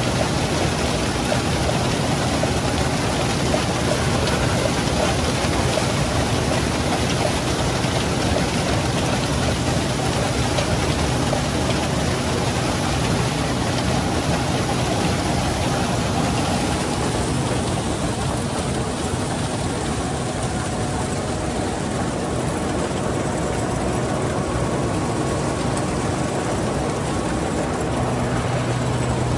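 Case 2388 combine harvester running steadily, the engine drone under a dense rushing hiss. The hiss thins in the highs about halfway through, and a deeper engine note grows stronger near the end.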